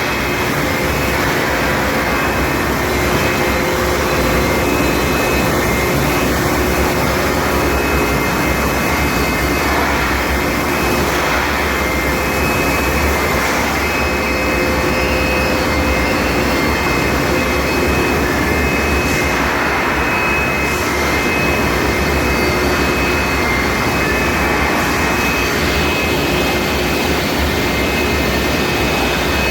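Steady industrial machinery noise from a running induction hardening and tempering line for steel drill pipe, an even rushing din with a faint steady high whine over it.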